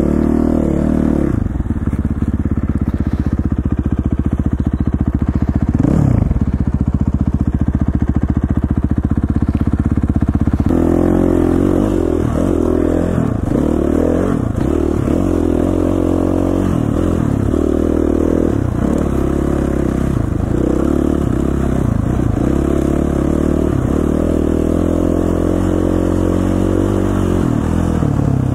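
KTM 450 dirt bike's single-cylinder four-stroke engine running under way. The sound changes abruptly about ten seconds in, after which the engine note rises and falls repeatedly with the throttle.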